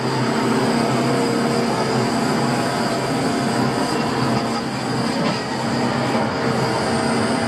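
Timber truck's hydraulic loader crane working as its grapple lifts a log: a steady mechanical whine over the running engine.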